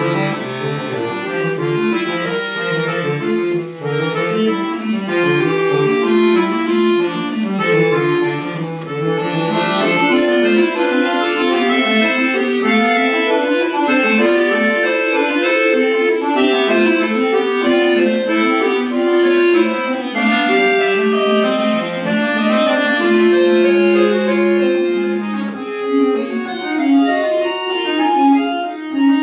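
Concert button accordion (bayan) playing solo, several melodic voices moving at once in a steady stream of notes.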